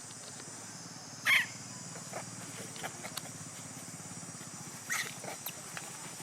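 Monkey giving two short, high squeaks, one about a second in and another near five seconds, with a few faint clicks in between, over a steady low hum.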